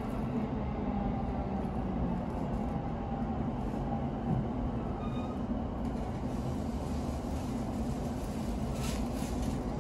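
Steady running rumble of a commuter train heard from inside the carriage as it pulls into a station, with a brief faint squeal about halfway through.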